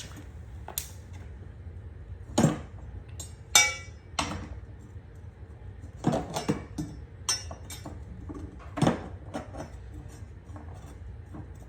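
Metal parts and tools clinking and clanking as a lawn mower blade and its fittings are handled and put back on: about eight separate knocks, the loudest with a brief ring about three and a half seconds in.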